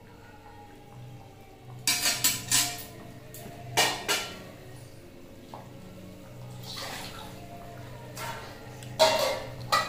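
Stainless-steel cookware clattering: a steel spatula and lid knocking against steel pans as they are stirred and set down, with a cluster of clanks about two seconds in, another about four seconds in, and a loud one near the end, over a low steady hum.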